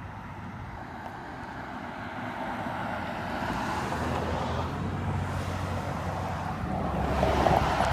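A vehicle approaching and passing close by: a rushing noise with a low hum that builds steadily to its loudest near the end, with wind on the microphone.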